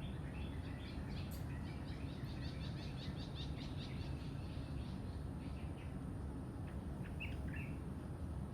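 Birds singing: a fast run of repeated chirps for the first few seconds, then a few single calls near the end, over a steady low background rumble.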